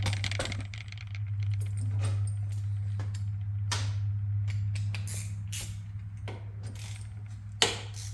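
Metal hand tools clinking and rattling as a socket and ratchet are worked onto a rounded-off bolt, with a sharp metallic clank near the end, over a steady low hum.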